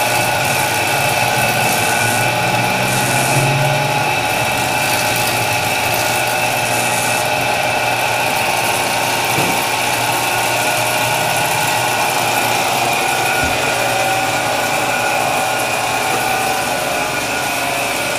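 Motor-driven bakery dough roller running with a steady mechanical hum.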